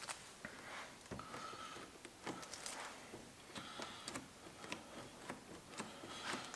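Faint, scattered light clicks, ticks and rustling of hands handling small parts and a paper towel at the front of the car.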